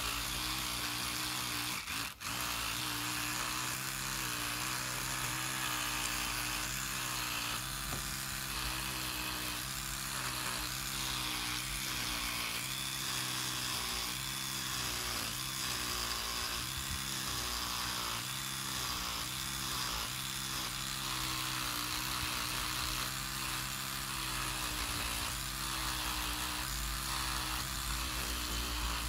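Sonic electric toothbrush buzzing steadily as its head scrubs rust out of the pitting in a Luger P08's steel grip frame. The buzz wavers as the brush is pressed against the metal, and it cuts out briefly about two seconds in.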